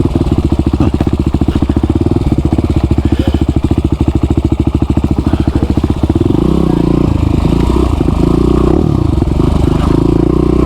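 Motorbike engine running at low revs as the bike is ridden slowly, with a steady pulsing beat. The revs shift a little about six to nine seconds in.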